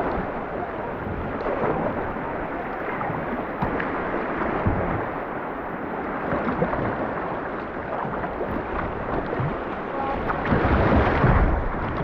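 Steady rushing of moving river water, with wind buffeting the microphone in low gusts that are strongest about ten to eleven seconds in.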